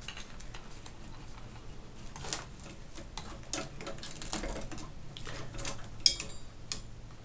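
Handling noise as wires and sleeved cables are worked out of a 3D printer's plastic electronics box: irregular light clicks and rustles, with a few sharper clicks.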